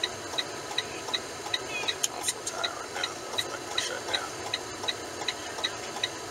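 Truck turn-signal ticker clicking steadily at a little under three ticks a second, over the cab's steady engine and road hum.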